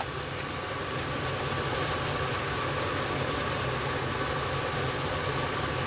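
A steady kitchen hum with a faint high tone, over the soft sizzle of vegetables frying in a cast-iron Dutch oven on an induction hob.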